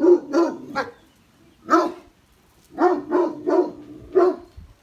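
A dog barking in alarm at a masked stranger: about eight sharp, fairly high-pitched barks in short runs, three quickly at the start, one alone near the middle, then four more in quick succession.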